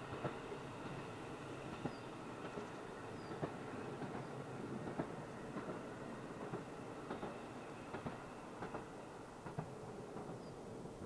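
A diesel train running past on the line, a steady rumble with irregular clacks of its wheels over the rail joints.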